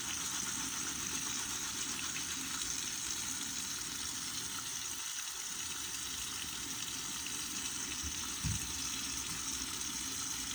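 Steady hissing of a bare Glock 17 slide being scrubbed with a soapy scrub pad to degrease it, with a soft knock about eight and a half seconds in.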